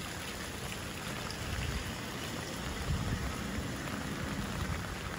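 Steady rain falling on a wet street, with a low rumble underneath.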